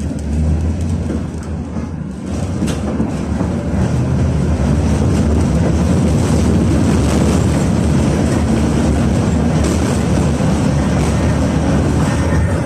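KTM-19 (71-619KT) tram with KR-252 traction motors, running and heard from inside the car: a steady low hum with wheel-on-rail noise. It grows louder over the first few seconds, then holds steady.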